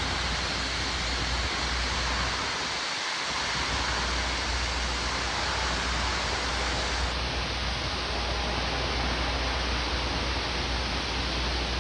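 Steady loud rushing noise with a low rumble underneath, with no clear rhythm or distinct events: construction-site and street noise around a crane lift.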